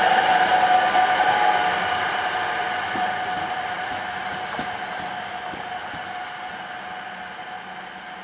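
Class 185 electric locomotive (Bombardier TRAXX) running light without a train. Its electric whine sounds in several steady tones and fades steadily as the locomotive moves away.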